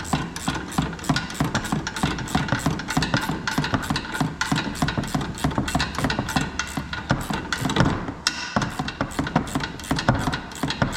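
A ratchet wrench tightening the nut on a Jeep Wrangler JK's front shock absorber stem, clicking evenly about five times a second, with a short pause a little after eight seconds.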